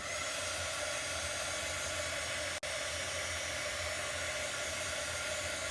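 Hair dryer running steadily with a hissing, even airflow noise, switched on right at the start, with a momentary drop about two and a half seconds in.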